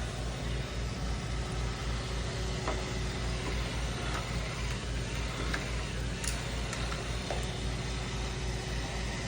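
Robot vacuum (Roomba) running with a steady motor hum, with a few light clicks and taps along the way.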